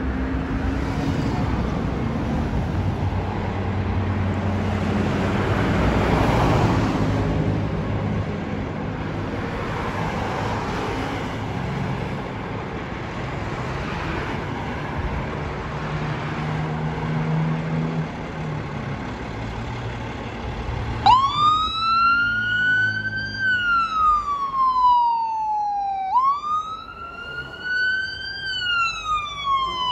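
Road traffic passing for about twenty seconds. Then Phoenix Fire Department Ladder Tender 24's siren starts in a wail, rising quickly and falling more slowly, about once every five seconds.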